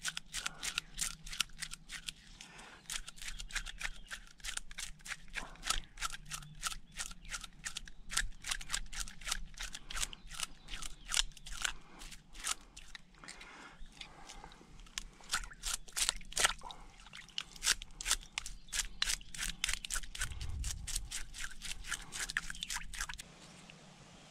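Knife blade scraping the scales off a perch in quick, repeated strokes, a few a second, stopping about a second before the end.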